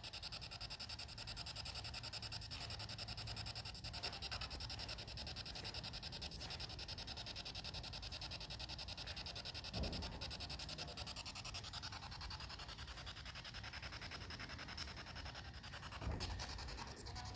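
Spirit box radio static: a steady hiss chopped rapidly as the box sweeps through stations, with a couple of dull thumps about ten and sixteen seconds in.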